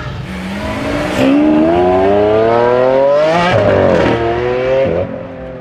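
Ferrari 488 Pista's twin-turbo V8 through a Novitec exhaust accelerating hard in a road tunnel. The pitch rises for about three seconds, dips briefly at a gear change, climbs again, then falls away.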